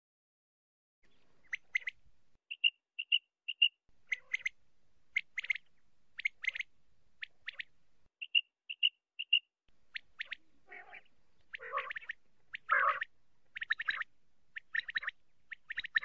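Common quail calling: short sharp notes, with a quick three-note phrase heard twice. Harsher, raspier calls follow in the second half.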